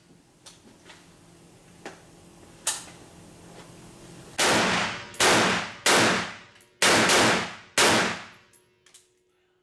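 A 7.5-inch piston-driven 5.56 short-barrelled AR rifle fired unsuppressed in a small indoor range: after a few light clicks, a string of very loud, separate shots about a second apart rings and echoes off the walls.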